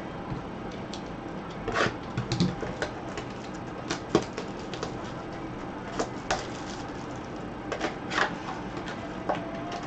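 Cardboard trading-card box handled and opened with gloved hands: irregular clicks, taps and rustles of card stock and packaging.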